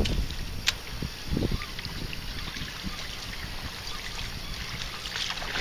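Wind buffeting the microphone at the shore: a steady low rumble with a few soft thumps and an odd sharp click.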